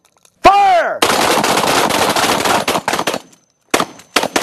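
Gunfire: a loud shot about half a second in, then about two seconds of rapid, continuous fire, and a few separate shots near the end.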